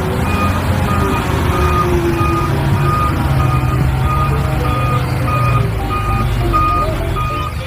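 Truck engine running with a reversing alarm beeping about twice a second; both cut off suddenly at the end.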